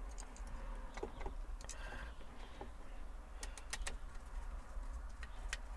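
Faint, scattered clicks and light taps of small parts being handled and fitted at a tractor's steering wheel hub, over a steady low rumble.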